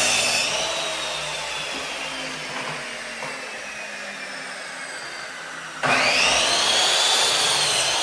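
Electric power tool motor whining: one run slowly winds down, falling in pitch over about five seconds, then the tool runs again for about two seconds near the end.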